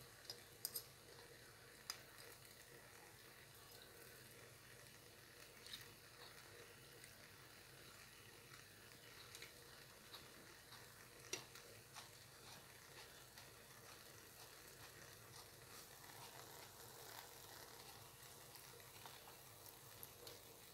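Faint sizzle of shredded potato and beaten egg frying in oil in a pan, with a few sharp pops and crackles scattered through it.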